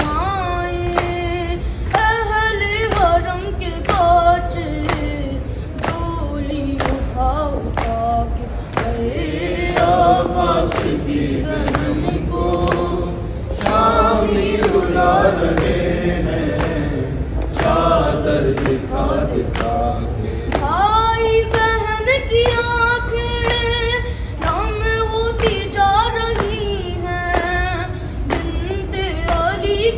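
A noha (Urdu lament) sung by a lead voice with a group of voices joining, over a steady beat of matam: open hands slapping chests a little more than once a second.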